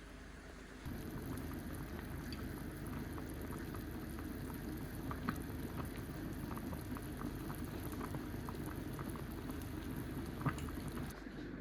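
Liquid bubbling at a boil in a cooking pot, a steady bubbling with small pops scattered through it. It starts about a second in and stops shortly before the end.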